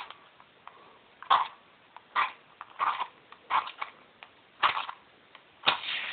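Match struck repeatedly against a matchbox's striker strip, making six or seven short scratchy strikes about a second apart. The last strike, near the end, catches and flares.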